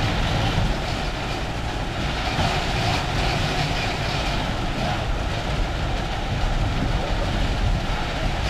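Concrete pump truck running steadily while pumping concrete, its engine and pump making a dense mechanical rumble.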